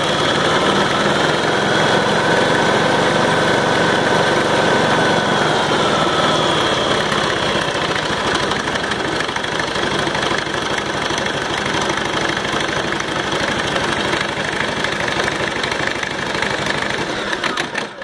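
Engine on a test stand, driving a B-25 aircraft generator and running steadily. Its pitch drops a little about six seconds in as the throttle is eased back, and the sound falls away right at the end as it is shut off.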